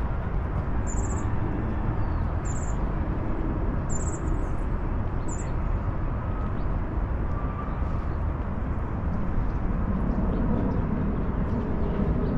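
Outdoor city street ambience: a steady low rumble with short, high bird chirps about five times in the first half, and the rumble growing louder near the end.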